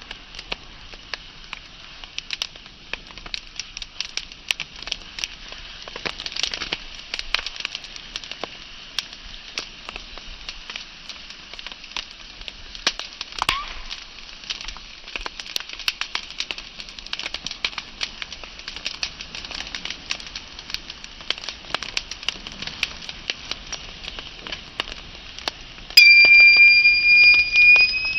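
Wood fire crackling: a dense scatter of sharp pops and snaps over a soft hiss. About two seconds before the end, a loud, high, steady tone cuts in suddenly and holds, louder than the fire.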